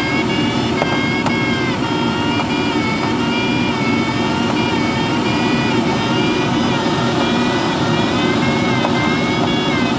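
Steady rush of airflow inside the cockpit of an engineless Schleicher ASW-15b sailplane in flight. A thin high whistling tone rides over it and shifts slightly in pitch a few times.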